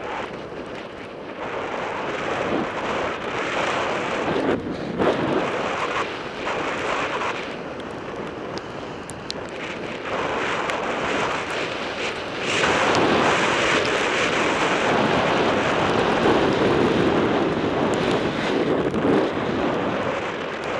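Wind rushing over the microphone of a camera on a moving mountain bike, mixed with tyre noise on the trail and small clicks and rattles from the bike. The noise grows louder a little over halfway through.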